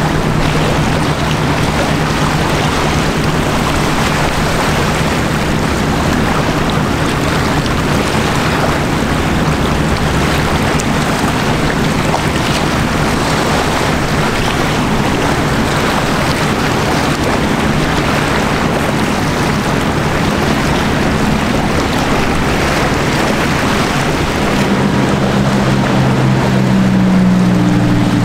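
Steady low engine hum of passing ships over a constant rush of wind and water. A deeper, stronger hum comes up near the end.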